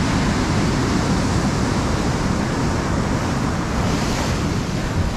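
Ocean surf breaking and washing over a rock ledge in a steady, loud rush, with wind buffeting the microphone.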